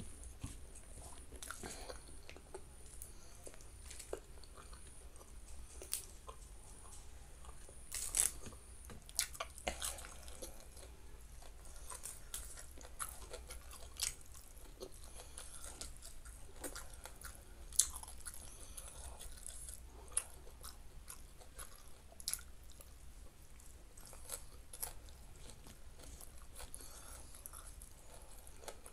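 Close-up chewing and crunching of a hand-eaten meal of rice, salted fish and raw vegetables such as Chinese cabbage, with scattered sharp crunches and mouth clicks between softer chewing.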